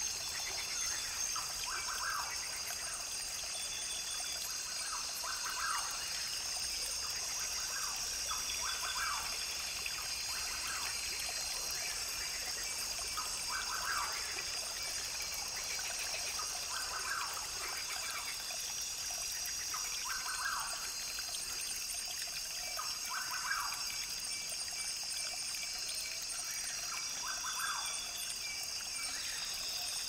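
Rainforest field recording: a brook trickling steadily, with a high-pitched chorus of birds calling in the background.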